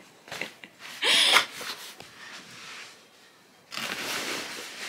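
Clothes rustling as laundry is handled and folded on the floor, with a few light clicks at the start and a short, loud burst of noise about a second in.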